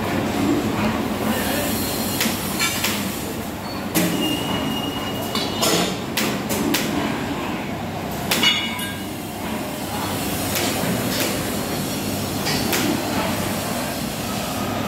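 Heavy steel farm machine being shifted and guided in a workshop: a steady rumble with scattered metal clanks, the loudest about eight and a half seconds in, and a brief high squeal about four seconds in.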